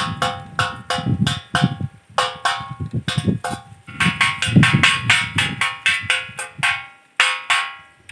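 Crop-protector bird and monkey scarer clanging: rapid, irregular metal strikes, several a second, each ringing out with a bell-like tone.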